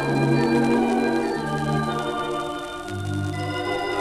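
Standaart 3/10 theatre organ playing a selection of old popular songs: sustained chords over a moving bass line, with a lower bass note entering about three seconds in. It is heard from a 1933 78 rpm record.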